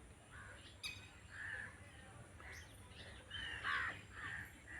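Faint birds calling in the background: a string of short calls, one about every half second, with a single sharp click about a second in.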